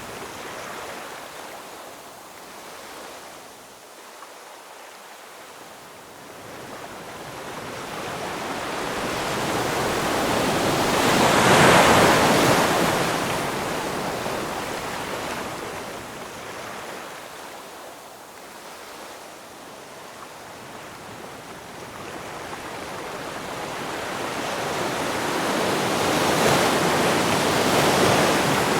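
Ocean waves: two slow swells of surf, each building over several seconds to a peak and then washing back, about fifteen seconds apart.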